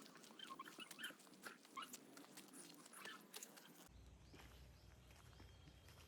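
Near silence, with faint scattered ticks and chirps.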